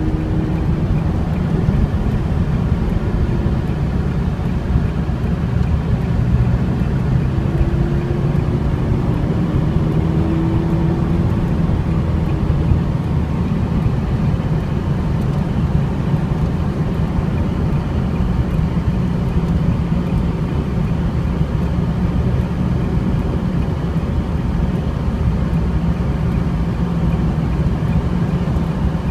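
Car engine running steadily under way with tyre and road noise, heard from inside the cabin as a continuous low drone.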